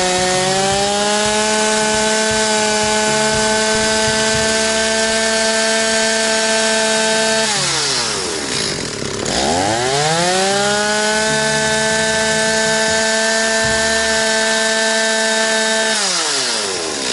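Two-stroke chainsaw free-revving at full throttle and held there for about seven seconds, let back down, revved up and held again, then let down and shut off at the very end. The owner thinks the saw could use a tune.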